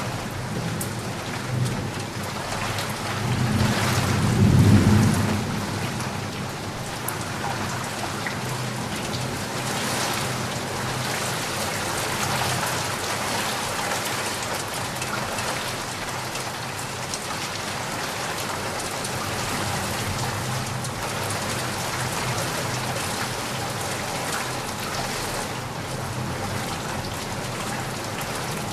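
Steady rain falling on surfaces, an even hiss of many drops. About four seconds in, a low rumble of thunder swells and fades, the loudest moment.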